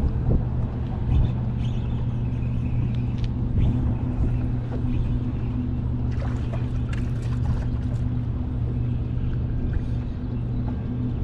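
Boat motor running at a steady low hum, with a few faint clicks over it.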